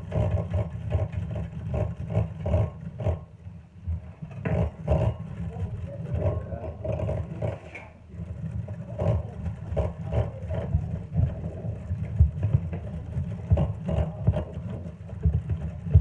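Hand whisk stirring dry ingredients in a plastic mixing bowl: irregular clicks and scrapes over a continuous low rumble.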